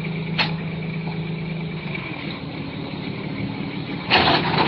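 A vehicle engine running steadily with a thin high whine over it. There is a sharp knock about half a second in, and a loud noisy burst near the end.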